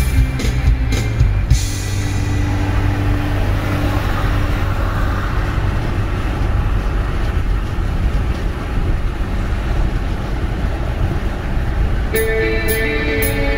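Steady road and engine noise of a car driving, with background music that cuts off about a second and a half in and comes back near the end.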